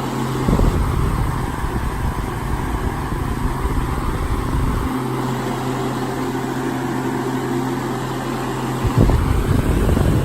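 2003 Holmes Blizzard 12-inch four-speed floor fan running on high: a steady motor hum under an even rush of air. Its air stream buffets the microphone in an uneven low rumble from about half a second in for several seconds, and again near the end.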